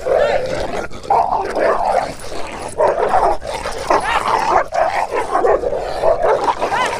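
Dogs fighting: a husky and a tan dog, with a small bulldog-type dog joining in, barking, snarling and yelping in a continuous scuffle.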